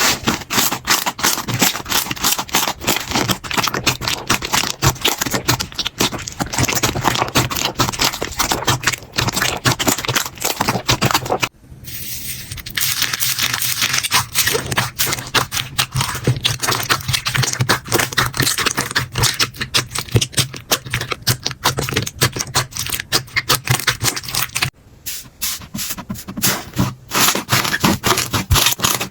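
Slime being squeezed and pressed by hand: dense, rapid crackling and popping clicks, with two brief drops in sound about 12 and 25 seconds in.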